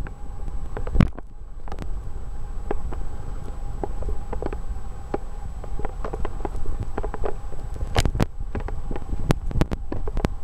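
Toyota Land Cruiser driving over a rough dirt track, heard from inside the cabin: a steady low engine and road rumble with frequent sharp knocks and rattles as the body and suspension take the bumps, and a faint steady whine.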